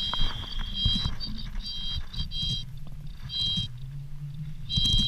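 Fly reel's click-pawl ratchet buzzing in short bursts, stopping and starting five times, as line runs on and off the reel while a hooked salmon is being played.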